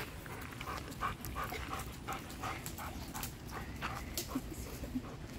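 A dog panting with short, repeated whimpers.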